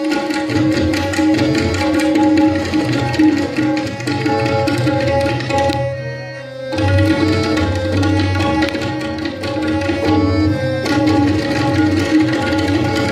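An ensemble of tabla played together in Rupak taal, with quick strokes over a harmonium's steady sustained notes. The drumming drops out briefly about six seconds in, then resumes.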